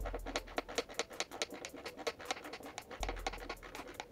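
Hand screwdriver driving a wood screw into a wooden board: quick scratchy clicks, several a second, with a low rumble twice.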